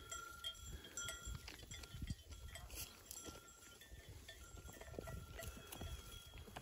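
Bells on a grazing flock of sheep clinking on and off, faint, with a low rumble underneath.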